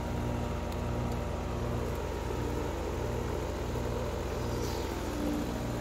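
Lennox Elite air-conditioner outdoor condenser unit running with a steady, even hum.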